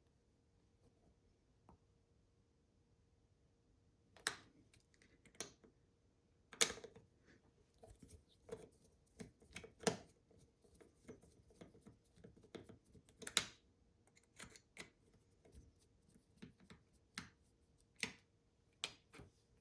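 Faint, irregular small clicks and taps from handling a plastic car key shell and its tiny screws with a small screwdriver, starting about four seconds in.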